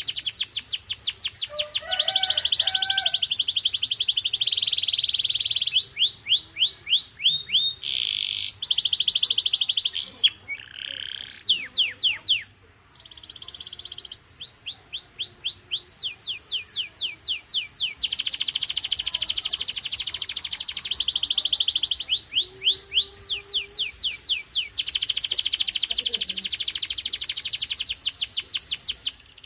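Canary singing a long song of fast trills and rolls, shifting every second or two from one run of rapidly repeated notes to another, with a short break about halfway through.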